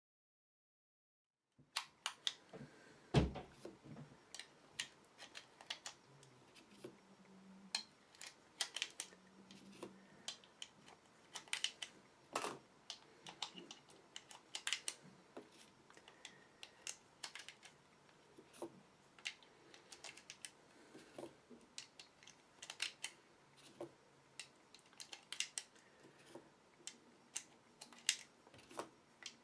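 9mm cartridges being pressed one at a time into a Glock 17 magazine fitted with a +3 Pierce grip extension, making a string of small, irregular clicks. The clicks start after about a second and a half of dead silence.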